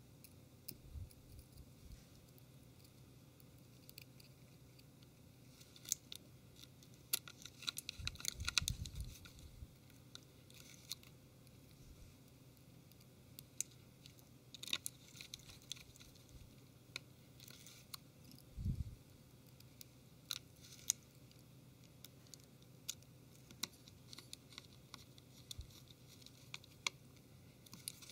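Precision Phillips screwdriver driving tiny screws into a phone's plastic rear case: faint, scattered clicks and scratches of the metal tip turning in the screw heads, with small handling noises of the handset and one soft knock about two-thirds of the way through.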